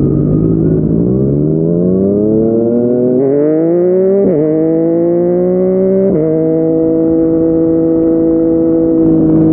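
Yamaha MT-09's three-cylinder engine through a Yoshimura R55 slip-on exhaust, accelerating with rising pitch, shifting up twice with a brief dip each time, then running steady at cruising speed.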